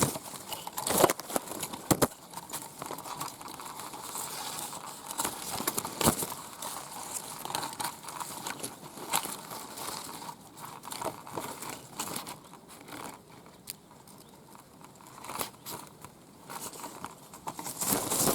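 Leaves and twigs rustling and crackling close to the microphone as a camera is pushed through a thick bush, with a few sharper cracks, the loudest about a second and two seconds in.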